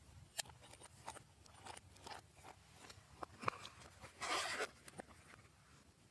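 Slime being squished and mixed by hand, giving a scatter of small sticky clicks and crackles. A longer squelching rustle comes about four seconds in.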